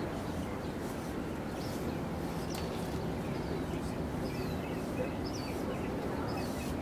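Small birds chirping now and then over a steady low outdoor rumble.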